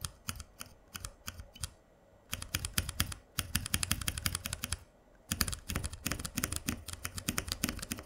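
Keystrokes on a small mechanical keypad with ZealPC Zealios 67g tactile switches: a few single presses, then quick runs of typing, with a short pause near the middle.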